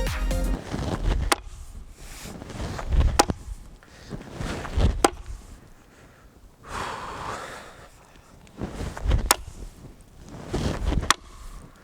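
Chopping axe striking into a log, five sharp, loud chops about two seconds apart with a pause midway.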